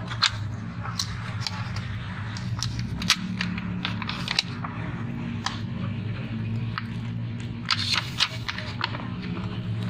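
Plastic polarizer film being peeled by hand off an LCD panel's glass. Its aged adhesive lets go in irregular sharp crackles and snaps, over a steady low hum.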